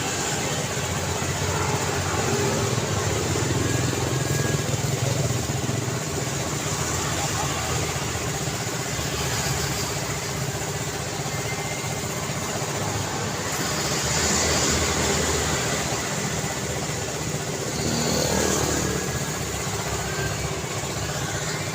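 Road traffic: a steady hum of tyres and engines, with vehicles passing by and swelling louder early, around the middle and near the end.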